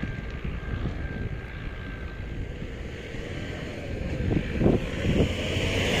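Wind buffeting the microphone over a steady low rumble of distant vehicle engines, with a few stronger gusts about four to five seconds in.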